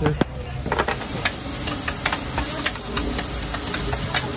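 Malaysian fried carrot cake (radish cake) being stir-fried on a hot griddle: steady sizzling, with frequent sharp clinks and scrapes of a metal spatula on the griddle.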